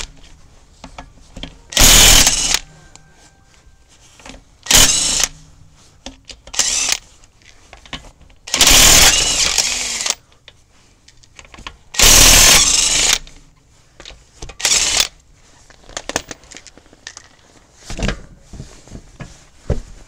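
Earthquake impact wrench hammering lug nuts off a car wheel in a series of short, loud bursts, about six over some fifteen seconds, with small knocks and clinks between them.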